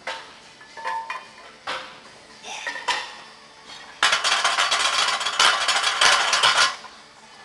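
A loaded barbell and iron plates clanking against a steel power rack: a few separate clanks, then a dense, loud rattle lasting under three seconds.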